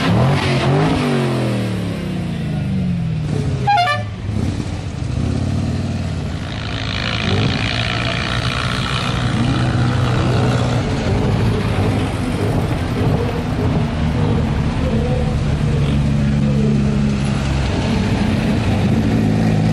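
A slow procession of classic and sports cars and motorcycles driving past, engines running at low speed, with their pitch falling as the first vehicles go by. A car horn sounds for a few seconds about seven seconds in, and steady engine running fills the second half.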